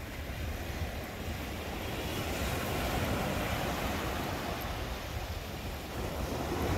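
Wind rumbling on the microphone over the steady wash of small waves breaking on a sandy shore, the surf swelling a little about two seconds in and again near the end.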